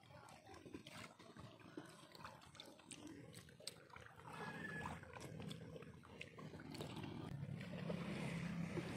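A few faint scattered knocks, then from about four seconds in a motor engine's hum growing steadily louder.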